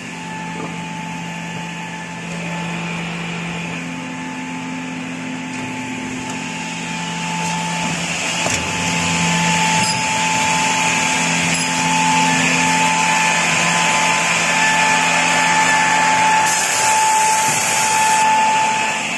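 Automatic edge banding machine running, its motors giving a steady hum with a high whine. It grows louder about eight seconds in, and a brief high hiss comes near the end.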